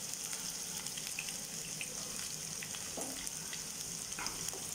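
Chopped onions sizzling in hot oil in a nonstick kadai: a steady frying hiss with small crackles. Near the end a wooden spatula begins stirring them.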